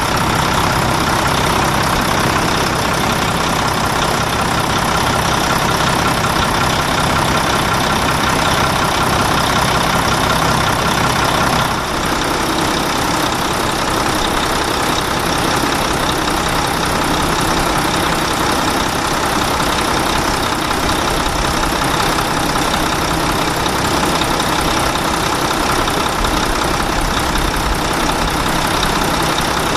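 Truck engine running steadily, with a short dip in level about twelve seconds in.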